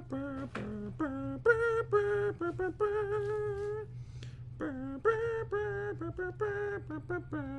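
A man humming a 1980s TV theme tune: a single voice without words, moving between held notes, over a steady low background hum.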